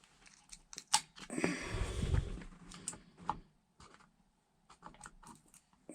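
Scattered light clicks and knocks of hand-handled parts at a truck's steering column, with a louder rustling scrape about a second and a half in.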